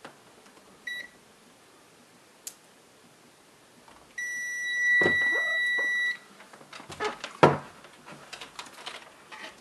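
AstroAI DT132A digital multimeter in continuity mode beeping: a short beep about a second in, then a steady beep of the same pitch lasting about two seconds from about four seconds in, the tone it gives for a closed circuit. After that, clicks and knocks from the test leads and meter being handled, the loudest a sharp knock about seven and a half seconds in.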